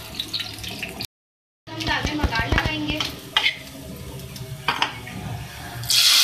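Onions, garlic and dried red chillies sizzling in hot ghee while a spoon stirs and knocks against the metal pan. Near the end a loud, hissing sizzle as the hot ghee tempering (baghar) is poured onto the cooked lentils in the pot.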